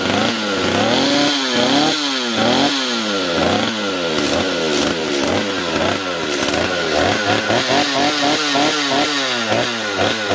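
Stihl two-stroke chainsaw revved over and over, the throttle blipped so the engine note climbs and drops back to idle each time, the blips coming faster in the second half. It picks up cleanly with no hesitation, its low-speed (L) carburettor screw just turned counterclockwise to richen a too-lean idle mixture.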